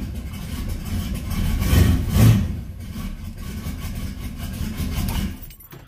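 Turbocharged small-block Chevy V8 running just after a cold fire-up on a newly installed MSD 6AL-2 ignition box, swelling louder about two seconds in, then shut off near the end. It is heard from inside the car's cabin, and that it runs shows the new box is making spark.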